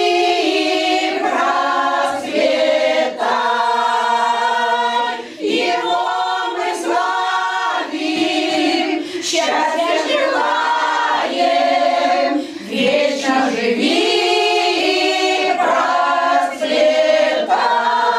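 Women's folk choir singing a Russian folk song together, in long held notes with short breaks between phrases.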